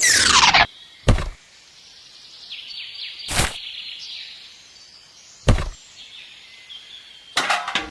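A quick falling whoosh cuts off a running motor, followed by single sharp knocks or thunks a couple of seconds apart and a rapid cluster of knocks near the end, over faint high bird chirping.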